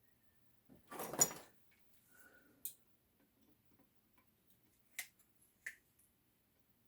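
Quiet handling of metal parts and tools on a workbench: a short scraping rustle about a second in, then a few faint metallic ticks.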